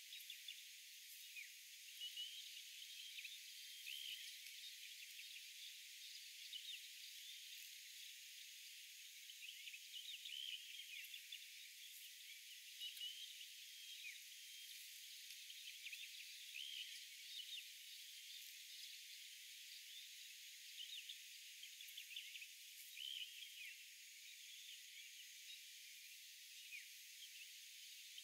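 Faint early-morning outdoor ambience: scattered short bird chirps over a steady high hiss of insects. It sounds thin, with nothing in the low range.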